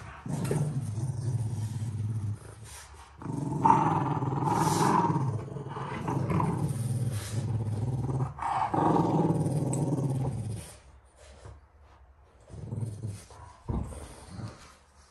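French bulldogs growling in play while tugging at a plush toy between them. The growling runs in long stretches through the first ten seconds or so, then drops to a few short, quieter growls.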